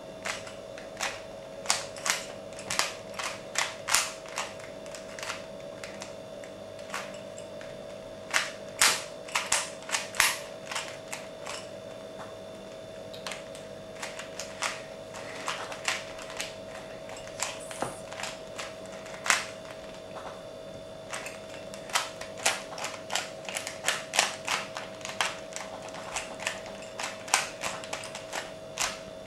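Rubik's cube being turned by hand: the plastic layers clack in irregular runs of quick turns with short pauses between, over a steady faint hum.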